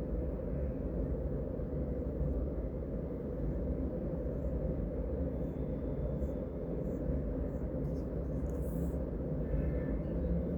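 Steady low rumble of street traffic, with a few faint pencil scratches on paper near the end.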